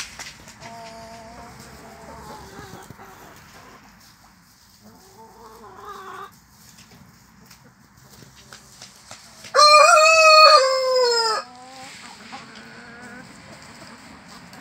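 An Amrock rooster crows once, loud, for about two seconds, the call dropping in pitch at its end, two-thirds of the way in. Before it, Amrock hens give softer drawn-out clucking calls.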